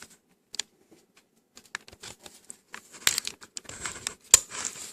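Hands working a small plastic part of a digital camera open: scattered sharp plastic clicks at first, then denser clicking and scraping from about three seconds in, with one loud click near the end.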